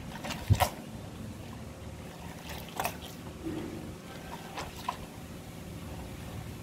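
Gloved hands scrubbing and squeezing a cloth napkin in a plastic basin of soapy water: water sloshing and dripping, with a few sharper splashes about half a second in, near the middle and a little later.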